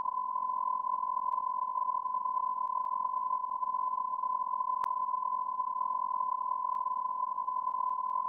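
A single steady electronic beep tone held unbroken at one pitch, with a few faint clicks, the clearest about five seconds in.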